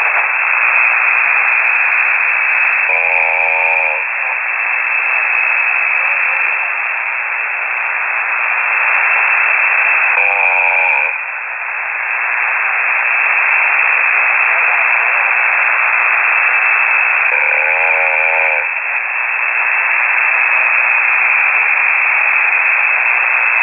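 Steady hiss of a single-sideband amateur radio signal received on a KiwiSDR, broken three times, about seven seconds apart, by a short wavering buzz of a ham operator snoring on the air.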